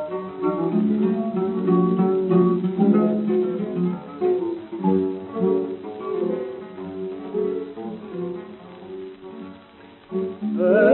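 Acoustic guitars playing an instrumental interlude between verses of an Argentine folk song, plucked melody lines over strummed chords. A singing voice comes back in near the end.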